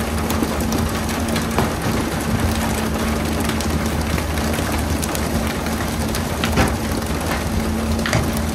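A fishing boat's engine runs with a steady hum under a constant hiss of rushing and splashing sea water, with scattered sharp knocks as pole-caught tuna land on the deck.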